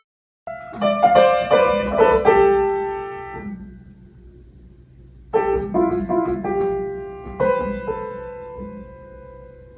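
Background piano music: a short phrase of struck notes about half a second in, fading away, then a second phrase about five seconds in that ends on a held note dying slowly.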